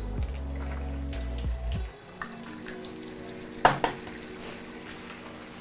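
Eggs sizzling as they fry in hot oil in a stainless-steel wok. A sharp double knock comes a little past halfway, an eggshell being cracked on the wok's rim.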